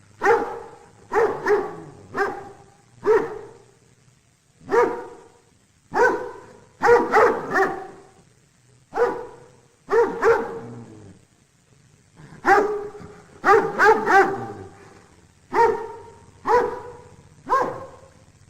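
A dog barking repeatedly, about one bark a second, some barks coming in quick pairs or triples, with a couple of short pauses.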